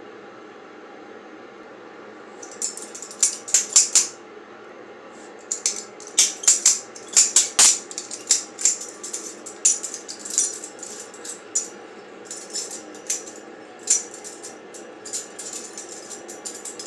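Butterfly knife (balisong) handles clicking and clacking against each other and the blade tang as it is flipped through tricks, in quick irregular flurries of sharp clicks. A short flurry comes about two and a half seconds in, and the clicking runs almost without a break from about five and a half seconds on.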